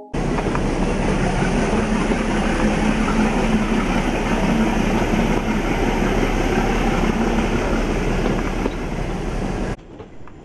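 Nilgiri Mountain Railway passenger train running, heard from its coach: a steady rumble of wheels on rail and rushing air that cuts off suddenly near the end.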